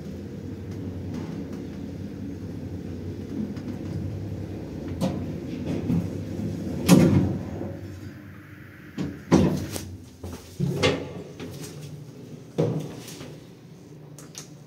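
Passenger lift running with a steady low hum, then a string of sharp clunks and knocks from about the middle on, the loudest about seven seconds in, as the car stops and its doors work.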